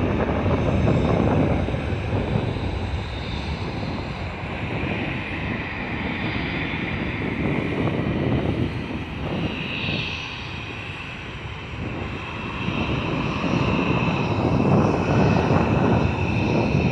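Boeing 777-200ER's twin Rolls-Royce Trent 892 jet engines at takeoff power: a steady low rumble with a high whine above it, dipping about ten seconds in and swelling again near the end.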